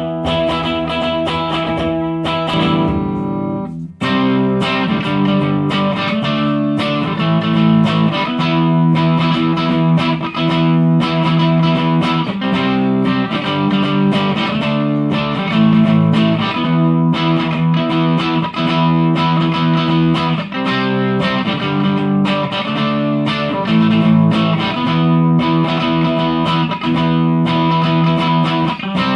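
Electric guitar played through a Line 6 POD Pro amp modeler, chords and single-note lines with a clean-to-crunch amp tone. The playing stops briefly about four seconds in, then carries on.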